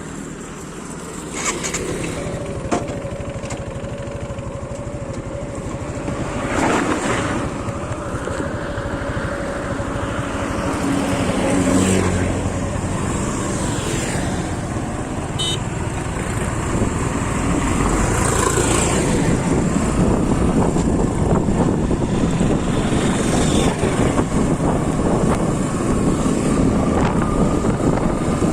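Motorcycle running on the road with heavy wind rush over the microphone, growing louder in the second half, and several whooshes of traffic passing.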